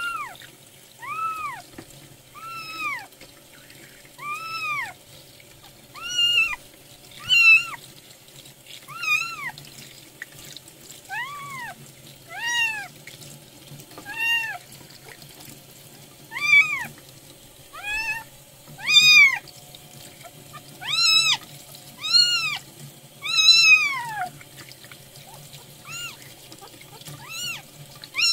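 Newborn kitten crying, a string of high mews that each rise and fall in pitch, about one every second or so and louder in the second half. Tap water runs steadily into the sink underneath.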